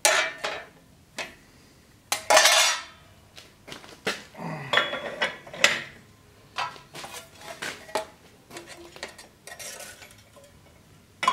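Thin sheet-steel pieces clinking, clattering and scraping against the steel tooling of a press as they are handled and set in place, in irregular knocks with the loudest clatter about two seconds in.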